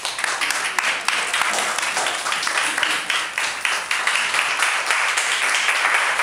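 A room full of people applauding steadily.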